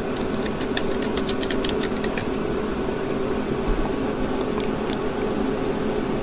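Steady background hum and hiss with a faint held tone, and a quick run of light ticks in the first two seconds or so.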